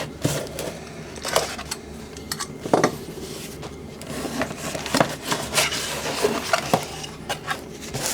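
Camera rig accessories and their packaging being handled: irregular clicks, taps and light metallic clinks.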